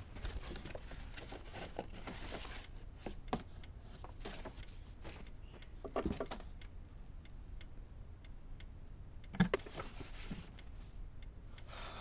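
Scattered light clicks, scrapes and rustles, as of small objects being handled, with one sharper click about nine and a half seconds in.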